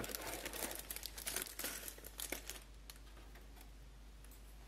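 Sealed plastic bags of Lego pieces crinkling and rustling as they are handled, a dense run of crinkles that stops about three seconds in.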